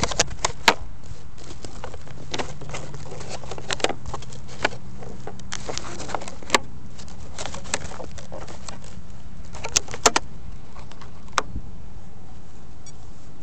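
Scattered sharp clicks and light knocks from the model jet being handled close to its onboard camera, over a steady hiss and a faint low hum.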